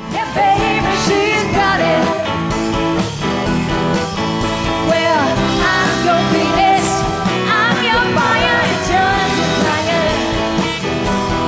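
A band playing a 1960s pop-rock song, with electric guitar, bass and drums under a lead vocal that sings throughout.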